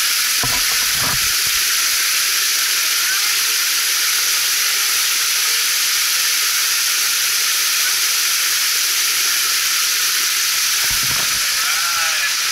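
Small waterfall splashing right beside the microphone: a steady, loud rush of falling water. A few dull low bumps come near the start and again near the end.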